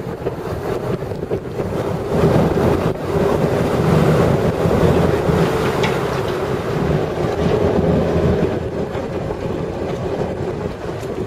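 Canal tour boat's engine running steadily, with water rushing past the hull and wind on the microphone; the sound swells about two seconds in and eases off after about eight.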